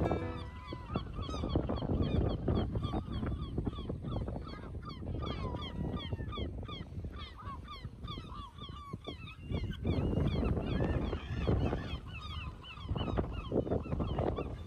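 A flock of gulls calling over one another, many short cries overlapping throughout, with gusts of wind on the microphone.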